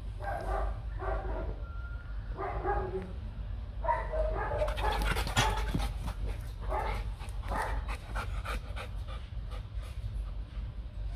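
Rottweiler whining in short repeated whimpers, with panting, as it fixes on its owner who has walked away. There is a run of sharp clicks and rattles through the middle.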